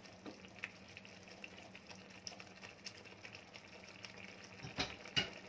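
Kofta curry gravy simmering in a pan, a faint bubbling with small pops, and two light knocks about half a second apart near the end.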